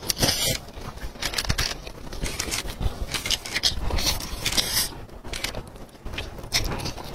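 Close-miked eating of roast chicken: chewing and tearing meat off a drumstick bone with the teeth, heard as irregular short clicks and bursts of noise.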